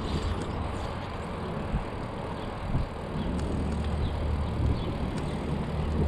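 Riding noise of a bicycle heard from a chest-mounted GoPro: a steady rumble and hiss, with a deeper hum setting in about halfway through and scattered light ticks.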